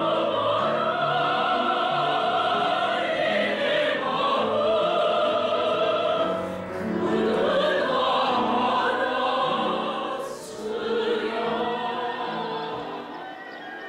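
Conservatory voice students singing classical music in an operatic style, holding long notes with vibrato across several phrases, with brief breaks between them.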